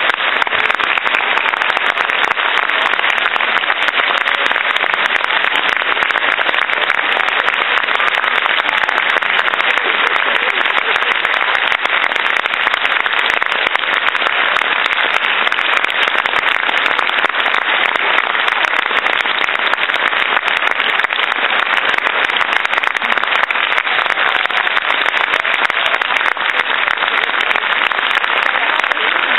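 Seated audience applauding steadily, a dense unbroken clapping.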